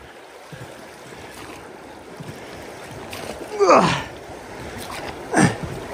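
Steady rush of river water around a drifting boat, with two short pitched squeaks, the first falling in pitch, about three and a half and five and a half seconds in.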